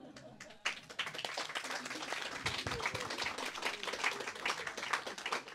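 Applause from a small group of people, hand clapping that starts about half a second in and thins out near the end.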